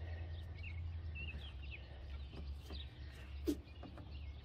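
Small birds chirping in the background, a string of short, quick chirps, over a steady low hum. A brief knock comes about three and a half seconds in.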